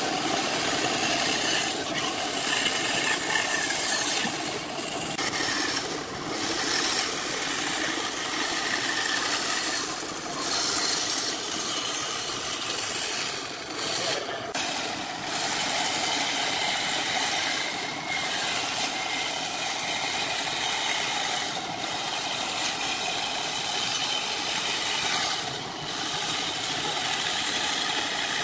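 Wood lathe turning a workpiece while a cutting tool shaves the spinning wood: a steady, hissing scrape of cutting, broken by several brief pauses as the tool lifts off.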